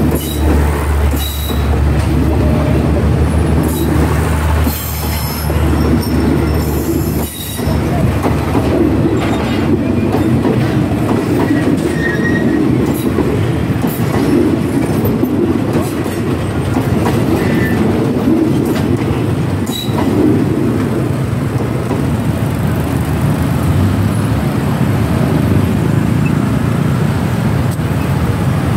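Passenger coaches of an express train rolling past close by, the wheels rumbling and clattering over the rails and the crossing, with a few brief high wheel squeaks. A steady low hum runs under it for the first seven seconds or so, then cuts off.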